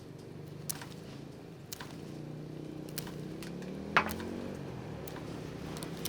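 A small engine running steadily with a low hum, its pitch rising briefly about four seconds in. Scattered sharp clicks sound over it, the loudest a snap at about four seconds.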